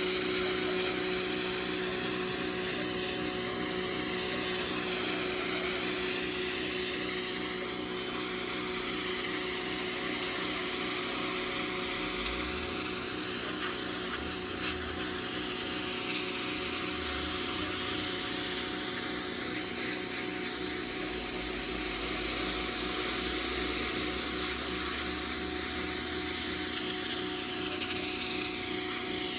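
Hyper Tough 1500 psi electric pressure washer running steadily: a motor-and-pump whine under the hiss of the water jet, the hiss shifting slowly in tone as the spray sweeps across brick.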